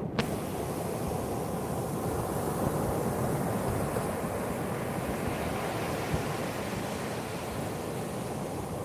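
Sea surf breaking and washing up a sandy beach, a steady rush of waves, with some wind on the microphone.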